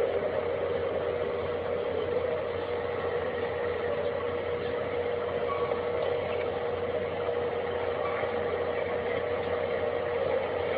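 A steady, unbroken droning hum with one held tone in the middle register over a low rumble and hiss, the kind of 'strange sound in the sky' recording whose source is unexplained.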